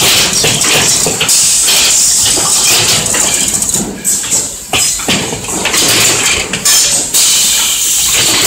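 Loud factory-floor noise from a drawer-slide production line: a steady high hiss with repeated knocks and metal clatter from the machinery.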